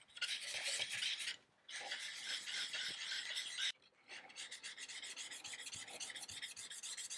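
Steel chisel back rubbed back and forth on a medium-grit diamond sharpening plate, flattening the back: a scraping hiss in three spells broken by two short pauses, the last spell with quicker, shorter strokes.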